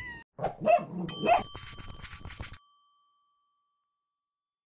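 A bell-like ding, part of an end-screen sound effect, rings out about a second in and fades slowly, among a short burst of other sudden effect sounds. The sound cuts off abruptly about halfway through.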